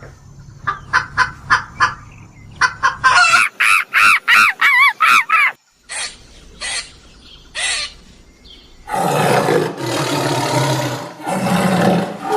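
Domestic fowl calling: a few short sharp calls, then a quick run of pitched, warbling calls, then a few more short calls. Near the end come two long, loud, harsh noisy sounds.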